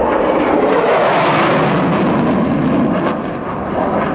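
SAAB 37 Viggen jet fighter passing at high power: its Volvo RM8 afterburning turbofan makes a loud rushing jet noise that swells about a second in and eases toward the end.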